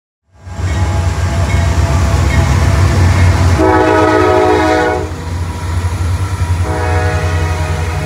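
Norfolk Southern diesel freight locomotives passing close by with a loud, low engine rumble, cutting in just after the start. A multi-note train horn sounds for about a second near the middle, and again from about two-thirds of the way in.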